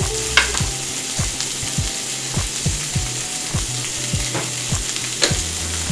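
A salt grinder being twisted, clicking steadily about three times a second, over butter sizzling in a pan of frying asparagus.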